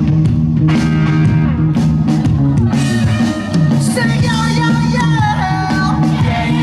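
Live rock band playing: a pitched lead melody that slides between notes over steady bass and drums, at concert volume.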